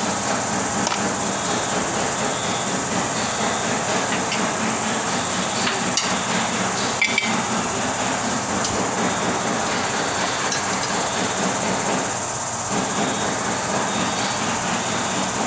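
A few short metal clinks of hand tools against a car's front suspension parts, the sharpest about seven seconds in, over a steady hiss of workshop noise.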